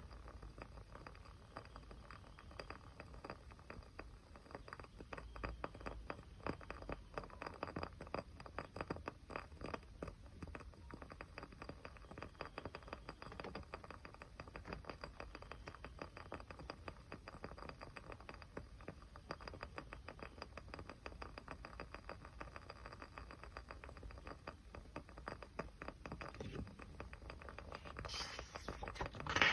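Small fire crackling: a steady stream of tiny pops and ticks, with a louder crackling burst near the end.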